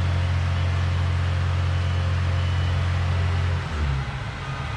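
A large engine running steadily with a deep low hum, which drops off and turns ragged about three and a half seconds in.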